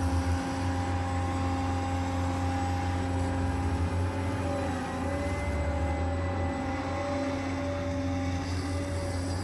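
Hydraulic pump and motor of a model RC excavator running with a steady whine and hum, its pitch wavering briefly about halfway through.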